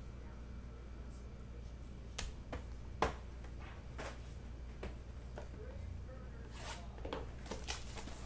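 Scattered sharp clicks and taps of trading cards and a plastic card holder being handled on a tabletop, the sharpest about three seconds in, over a steady low hum.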